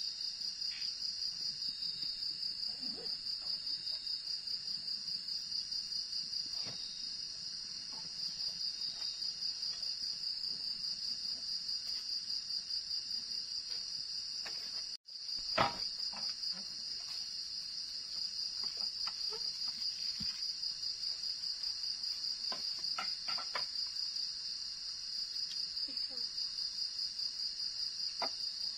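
Crickets chirping at night in a steady, high-pitched chorus that pulses rapidly and evenly, with faint scattered clicks and knocks beneath it. The chorus cuts out for a moment about halfway through.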